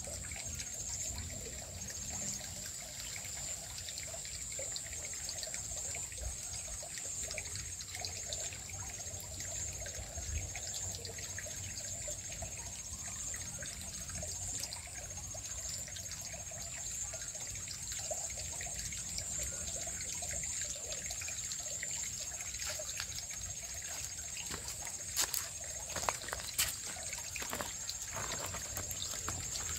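Small shallow stream trickling over stones, a steady even water sound, under a constant high-pitched buzz. A few sharp clicks sound near the end.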